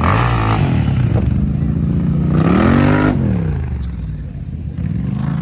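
ATV engine running, revved up once and back down about two and a half seconds in.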